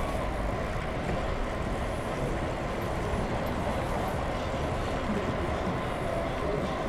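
Steady outdoor rush of passing road traffic mixed with the wind and tyre noise of a moving bicycle, with no single sound standing out.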